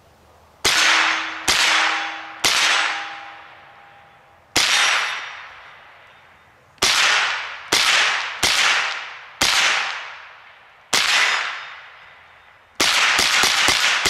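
Ruger 10/22 semi-automatic .22 LR rifle firing: nine single shots at irregular spacing, each with a short fading echo, then a fast string of shots near the end. A faint ringing tone lingers after the first three shots.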